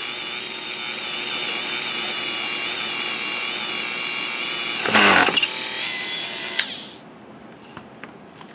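Dremel rotary tool running on a slow speed setting with a steady, slightly wavering high whine as it drills a hole through the model's floor. About five seconds in it gives a short, louder rasp. The tool switches off near seven seconds, leaving a few faint clicks.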